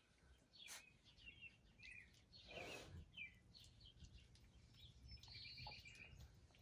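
Faint birdsong: scattered short chirps and, near the end, a quick repeated trill, over a low background hush.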